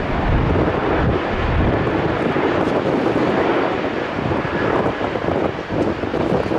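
Boeing 777-300ER's GE90 jet engines running at taxi power as the airliner rolls past: a steady, loud jet rush.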